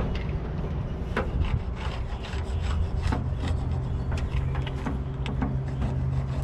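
Spline roller pressing spline and screen mesh into the groove of a screen door frame: repeated rubbing and scraping with small irregular clicks, over a steady low hum.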